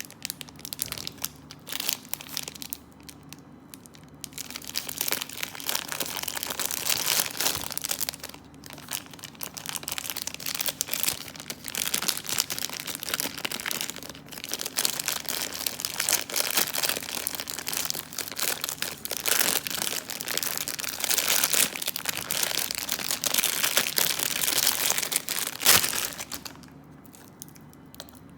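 Plastic wrapping crinkling and rustling in long stretches of handling, with brief pauses, as it is worked off a new wristwatch.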